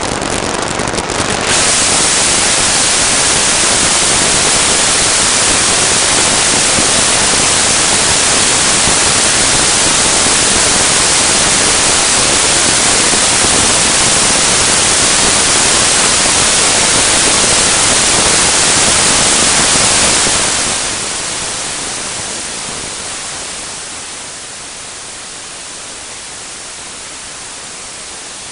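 Acoustic emission signal from a rolling bearing, made audible by the monitoring instrument: a loud, even hiss that falls off about 20 seconds in and settles into a quieter steady hiss.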